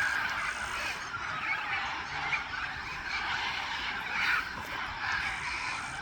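A flock of macaws and parrots calling, with repeated rasping squawks that overlap one another.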